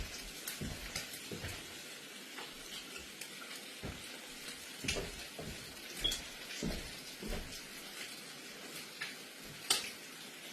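Food sizzling in a hot pan: a steady hiss, broken by scattered clicks and knocks of a utensil and cookware.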